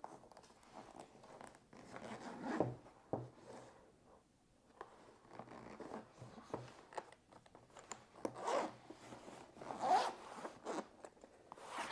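Zipper on a fabric-covered hard carrying case being pulled open around its edges in several short rasping pulls, with pauses between them.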